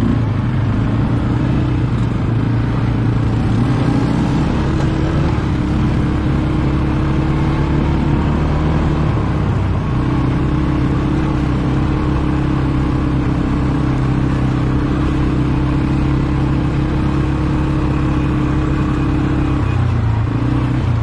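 ATV engine running steadily under way, its note shifting a few times as the speed changes.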